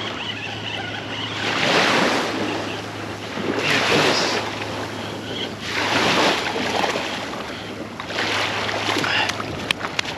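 Small waves breaking and washing up on a beach, a swell of surf about every two seconds, with a few sharp clicks near the end.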